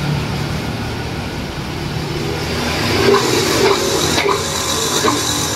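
Karcher HD 5/11 high-pressure washer running on a test after repair: a steady mechanical hum with rushing water noise. A few light clicks come in the second half.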